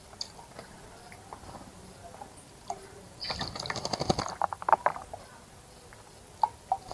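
A small bird bathing in a shallow birdbath: a burst of rapid splashing and wing-fluttering in the water lasting about two seconds near the middle, with faint scattered ticks before and two sharp ticks near the end.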